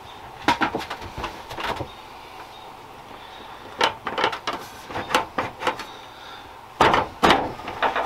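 Sliding glass shower door panels clunking and rattling in their metal track and rollers as they are worked loose, in three short runs of knocks.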